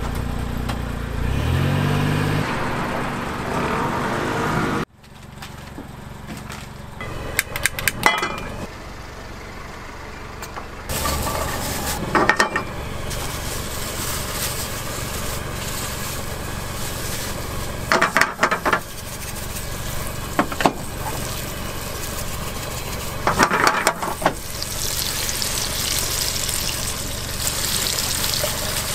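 A motor hums and rises in pitch in steps for the first few seconds, then cuts off. After that, garlic sizzles in olive oil in a frying pan over a gas burner, with short clusters of sharp clicks every few seconds. The sizzling grows louder and brighter near the end as diced bacon is frying in the pan.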